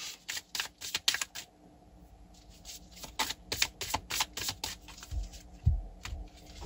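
Tarot cards being shuffled by hand: quick runs of light card flicks and snaps, a short lull, then more. A couple of dull thumps follow near the end as cards are set down on the cloth-covered table.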